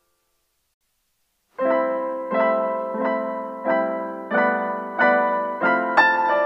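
Silence, then about a second and a half in, background piano music starts, with a chord struck about every two-thirds of a second, each one dying away.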